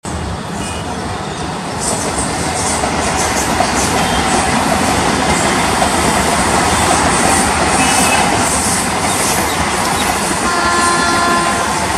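Express train approaching at speed: a steady rumble and rail noise that grows louder about two seconds in, with a brief high pitched tone near the end.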